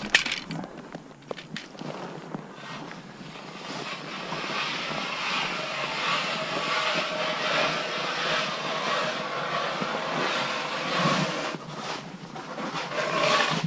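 Footsteps crunching across snow-covered lake ice at a steady walking pace, over a steady hiss.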